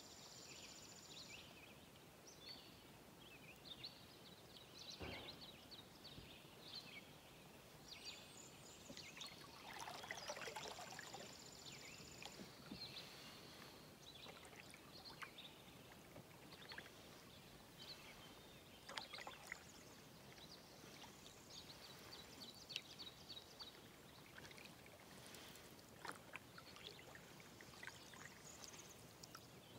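Canoe paddle strokes in calm water, faint, with water trickling and dripping off the blade and a louder splashing stroke about ten seconds in. Faint high chirps and trills sound over it throughout.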